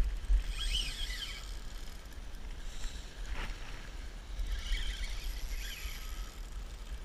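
Wind buffeting the microphone as a low rumble, with two short bursts of high, sweeping chirps, one about a second in and one near five seconds.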